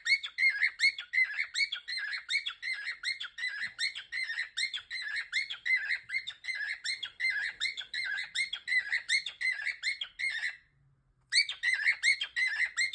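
Cockatiel chirping rapidly and insistently, about four short chirps a second in an even run. The calling breaks off briefly about three-quarters of the way through, then starts again.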